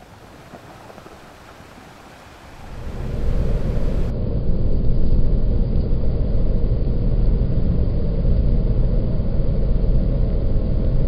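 Faint hiss, then about two and a half seconds in a loud, steady low rumble builds up and keeps going: a rocket engine sound effect laid over the toy space shuttle's take-off.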